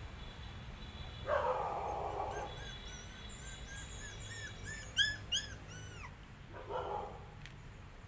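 Puppies vocalising. One gives a short, harsh bark, then there is a run of short, high whimpering yelps, several a second, each rising and falling in pitch and loudest near the middle. Another short bark comes near the end.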